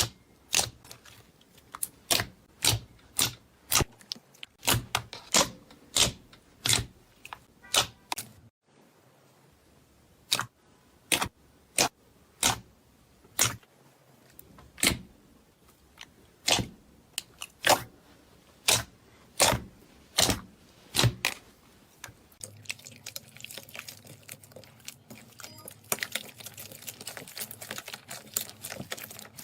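Slime being pressed and worked by hand, giving sharp popping clicks about once or twice a second, with a short pause about a third of the way in. In the last quarter the pops give way to a dense, soft crackling.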